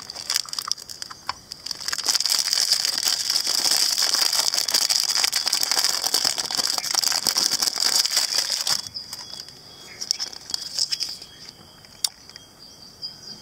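Foil wrapper crinkling and crackling as it is unwrapped by hand from a small plastic toy figurine. The crinkling stops about nine seconds in, leaving only a few faint clicks of handling.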